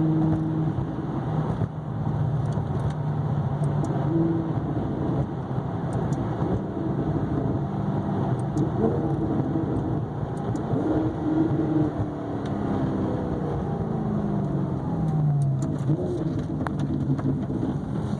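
2009 Maserati GranTurismo S's 4.7-litre V8 exhaust in sport mode while driving, the engine note rising and falling in pitch as the car speeds up and slows, with falling sweeps in the later part.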